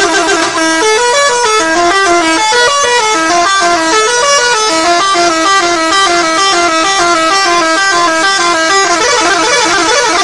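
Bus 'telolet' musical air horn playing a loud, quick tune of short notes that step up and down in pitch.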